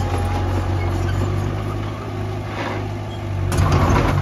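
Diesel engine of heavy earthmoving equipment running steadily with a low hum, growing louder with a clattering rattle from about three and a half seconds in.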